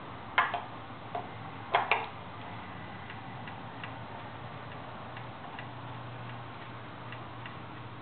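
A few sharp knocks and clicks in the first two seconds as the Klipsch KG 4.2 tweeter horn is handled, then faint, scattered small ticks as its mounting nuts are spun off the studs by hand.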